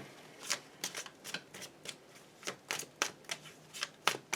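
Tarot cards being shuffled by hand: an irregular run of short, sharp card snaps, about a dozen in four seconds.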